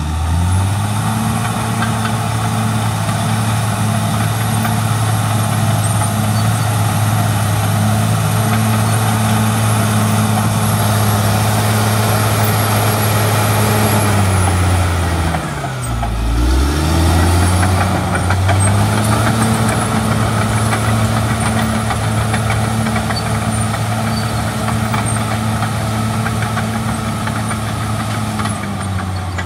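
Caterpillar D6R XL bulldozer's diesel engine running hard while the dozer pushes soil with its blade, revving up in the first second and then holding a steady pitch. About halfway through, the revs drop away and climb back up within a couple of seconds, and they fall again at the very end.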